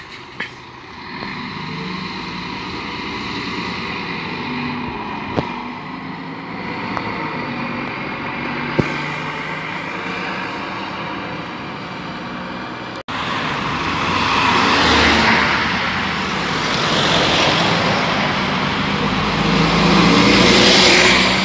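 Mercedes-Benz O500LE city bus pulling away, its engine note rising and dropping several times as it accelerates off. After a cut, a second bus passes close by, louder, its engine and road noise swelling near the end.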